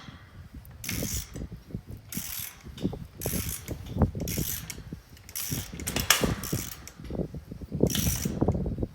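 Ratchet wrench tightening a bolt and nut down on a gate-opener bracket, its pawl clicking in short bursts about once every second or so as the bolt cinches against the pipe.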